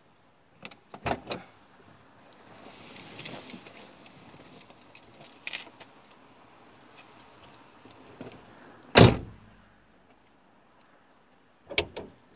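Car door clicking open about a second in, rustling as someone climbs out of the seat, then the driver's door shut with a heavy thump about nine seconds in, and a few sharp latch clicks near the end as another door is opened.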